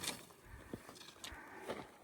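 Hiker's footsteps: irregular steps and scuffs of boots on the trail.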